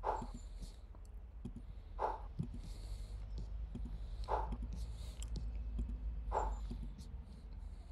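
Mouse or trackpad clicks while apps are removed one by one from the Mac's Dock through its right-click menu. A short mid-pitched sound recurs about every two seconds, over a steady low hum.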